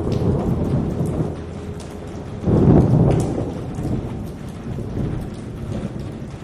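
Thunderstorm: steady rain with scattered drops, and a low thunder rumble that breaks in suddenly about two and a half seconds in and slowly dies away.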